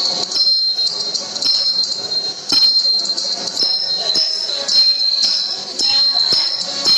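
Music with bells jingling steadily, struck in a regular beat.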